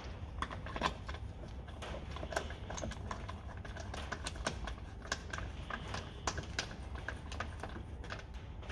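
Wheel bolts being threaded by hand into a car's wheel hub as the wheel is refitted: a run of light, irregular metallic clicks and ticks over a low steady hum.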